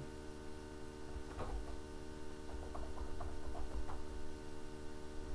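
Steady electrical hum, with a few faint, separate keyboard key clicks in the middle of the stretch.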